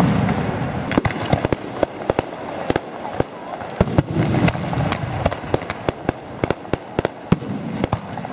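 Fireworks display: aerial shells bursting in a rapid, irregular string of sharp bangs and cracks, several a second, over a low rumble that swells at the start and again about four seconds in.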